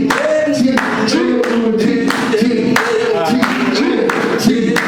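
Voices singing over a steady clapped beat of about three claps a second.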